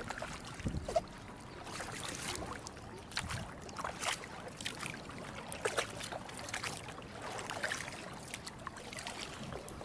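Double-bladed kayak paddle dipping into seawater beside an inflatable kayak: irregular splashes and dripping as the blades pull through and lift out, about one stroke a second.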